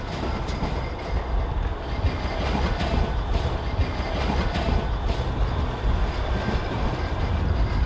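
A train running past on the rails, giving a steady low rumble with wheel noise that lasts the whole time.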